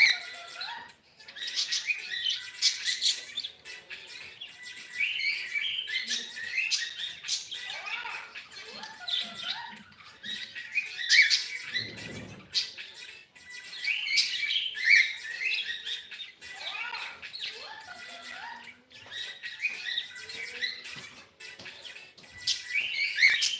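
Pet cockatiel chirping and warbling in a long run of short whistled notes that bend up and down, with a few sharp clicks mixed in.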